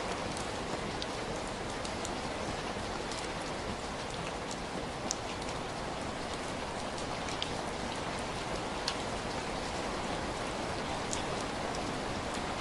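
Steady heavy rain falling, a dense even hiss with scattered sharp drop ticks.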